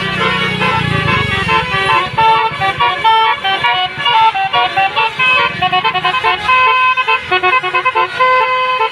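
Bus 'telolet' musical horn playing a quick tune of short notes that change pitch every fraction of a second, over a low rumble in the first second or so.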